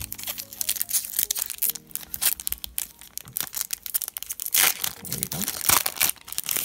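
A foil Pokémon card booster pack being crinkled in the hands and torn open: a dense crackling of foil that grows loudest about five seconds in, as the wrapper rips.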